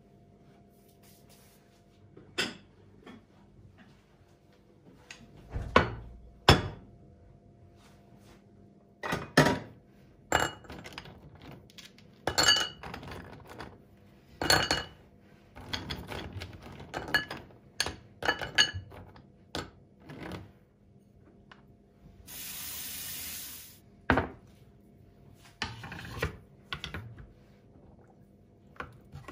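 Dishes, cutlery and glassware clinking and knocking as they are handled and set down, in irregular separate strikes, some ringing briefly. A steady hiss runs for about a second and a half about 22 seconds in.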